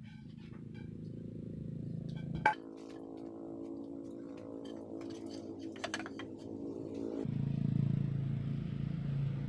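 Wooden branch poles knocking as they are laid across a pile of cut branches: a sharp knock about two and a half seconds in and a second one about six seconds in. Under them runs a steady motor hum with a pitched drone that grows louder and changes pitch about seven seconds in.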